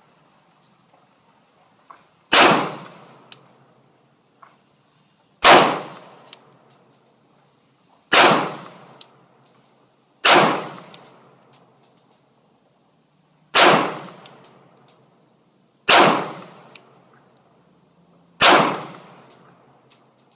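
Springfield XDs 9mm pistol firing seven single shots at a slow, deliberate pace, about two to three seconds apart, each with a short ringing echo. A fainter sharp tick follows about a second after most shots.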